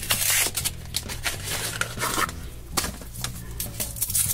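Packaging being handled: a cardboard box opened and the foil wrapper of a chocolate surprise egg crinkling and tearing as it is peeled off, in irregular rustles and crackles.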